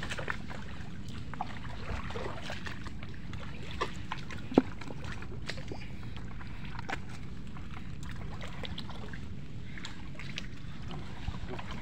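Shallow water sloshing and dripping, with scattered small clicks and one sharper knock about four and a half seconds in, over a steady low rumble.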